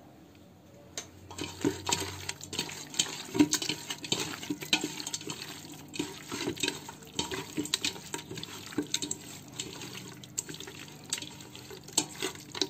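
Raw chicken pieces squelching wetly as a hand kneads them into a spice marinade in a steel bowl. Quick, irregular squishes start about a second in and keep going.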